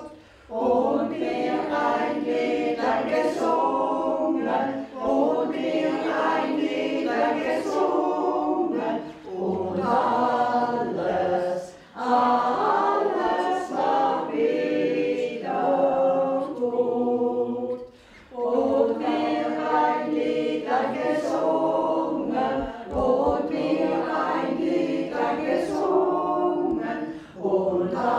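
Group of elderly voices singing a German song together, unaccompanied. The lines run on with brief breath pauses between phrases.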